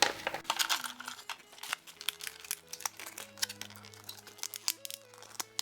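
Crinkling and crackling of small plastic packaging being handled and opened, in many quick irregular crackles, over soft background music.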